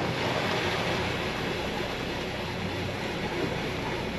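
Boat's outboard motor running steadily at slow trolling speed, a low even hum under the wash of wind and sea.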